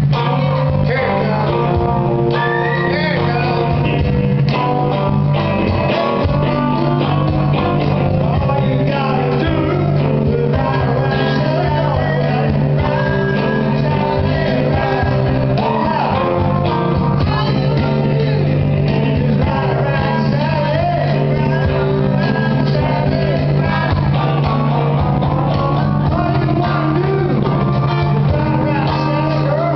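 Live rock band playing: a singer with acoustic guitar, backed by electric bass.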